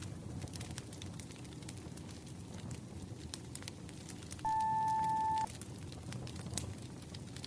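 Wood fire crackling with scattered sharp pops; about four and a half seconds in, a single steady electronic beep sounds for about a second, the timer signalling the end of a 25-minute pomodoro focus period.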